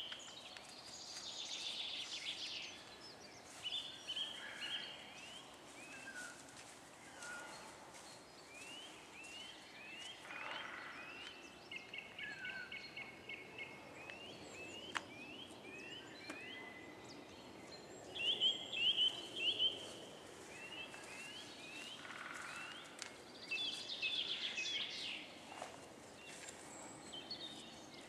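Wild songbirds singing: a steady string of short, high chirping notes repeated a couple of times a second, with a few louder, busier flurries of song.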